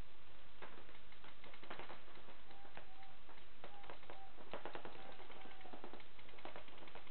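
Paintball markers firing across the field: fast irregular pops and clicks, bunched in volleys, heard through a low-quality security-camera microphone. A faint steady tone comes and goes in the middle.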